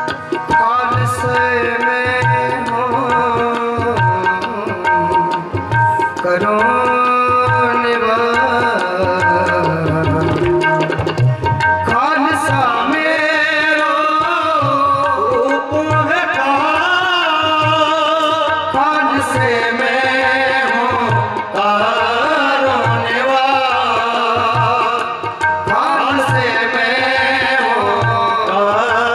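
Sikh Gurbani shabad kirtan: men singing devotional verses to harmonium accompaniment, with a tabla keeping a steady beat.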